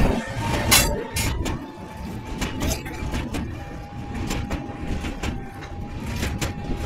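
An Indian Railways electric locomotive followed by red passenger coaches passing close by on a steel truss bridge: a steady low rumble of wheels on rails, with repeated sharp clacks and a faint steady high tone running underneath.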